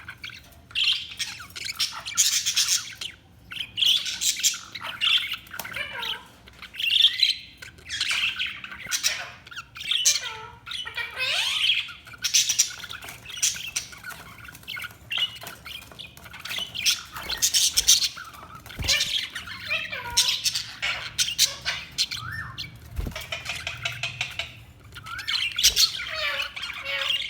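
Budgerigars chattering and chirping continuously, with many short squawks and warbles overlapping.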